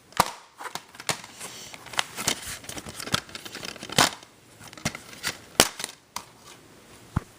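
Irregular sharp clicks and taps with short bursts of crinkling and rustling, as of objects, likely the DVD and its packaging, being handled close to the microphone.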